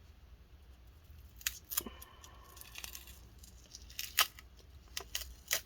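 Adhesive tape being slowly peeled off a laptop motherboard: quiet, scattered small clicks and crackles, with a brief faint squeal about two seconds in.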